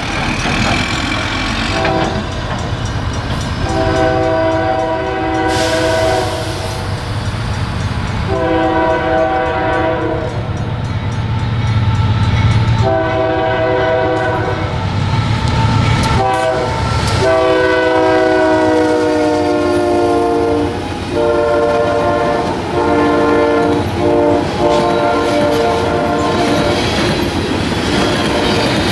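Nathan Airchime K3LA three-chime air horn on a Union Pacific GE AC44CW diesel locomotive, sounding a series of long and short blasts as the train approaches and passes. The chord falls slightly in pitch about two-thirds of the way through as the locomotive goes by, over the low rumble of the diesels and the clatter of railcars on the track.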